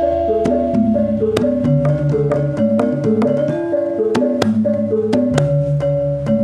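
Computer-produced gamelan-style accompaniment for Reyog and Jathilan dance. Struck metallophone notes play a repeating melodic figure, several notes a second, over sharp drum strokes.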